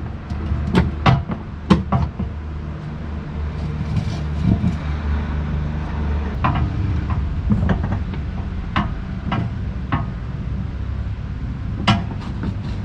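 Scattered sharp metal clicks and knocks from working a hydraulic jack under a heavy log, over a steady low mechanical hum.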